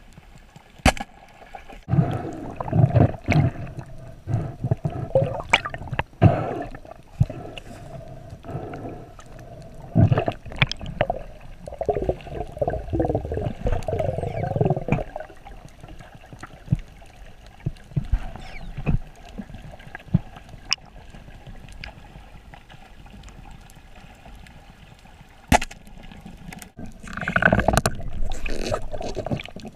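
Underwater sound of a free diver swimming: water rushing and bubbling past the camera in surges, with scattered sharp clicks throughout.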